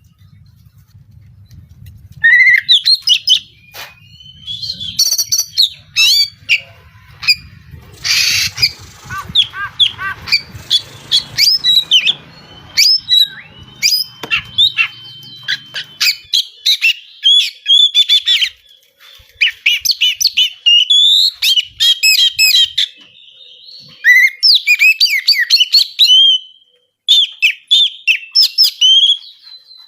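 Oriental magpie-robin (kacer) singing a fast, unbroken string of sharp chirps and whistles. About eight seconds in comes a harsh rasping call, and a little later a single held whistle.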